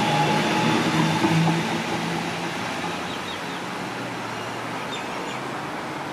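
Sydney Trains Waratah electric train moving away from the platform: its traction motors whine over the wheel and track noise, then fade out over the first two seconds, leaving a steady, quieter rail rumble.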